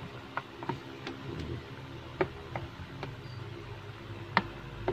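Sharp clicks and taps of hard plastic as the improvised cabin-filter slot and its cover on the air-conditioner intake housing are handled and fitted: about seven separate clicks, over a steady low hum.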